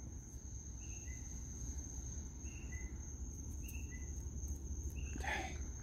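Night insects: a steady high-pitched trill, with a short two-note chirp, higher then lower, repeating about every second and a half. A brief soft sound breaks in about five seconds in.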